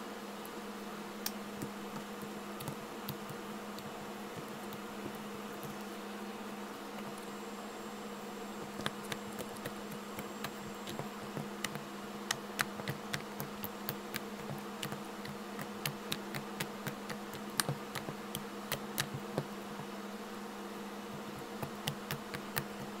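Hands poking and kneading a soft slime on a table, making scattered small sticky clicks and pops that come more often from about a third of the way in, over a steady low hum.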